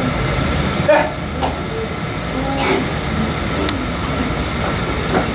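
Steady rumbling room noise with brief, indistinct voices scattered through it and a short knock about a second in.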